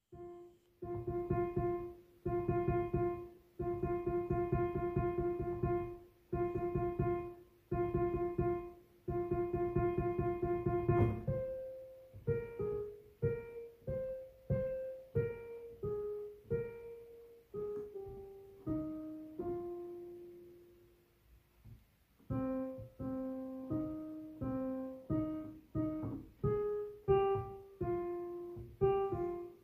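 Solo piano background music. At first one note is struck over and over in quick runs with short breaks, then a slower melody of single notes rises and falls, with a short pause about two-thirds of the way through.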